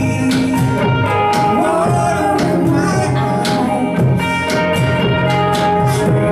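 A small live band playing a song: electric and acoustic guitars over a steady beat, with a sharp percussion stroke about once a second.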